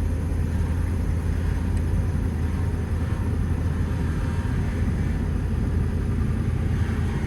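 Engine of a 2020 Ford vehicle idling: a steady low rumble.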